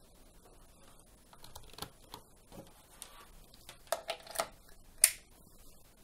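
Handling noise: a few light clicks and taps of plastic parts, starting about a second and a half in, with the sharpest ones near the end.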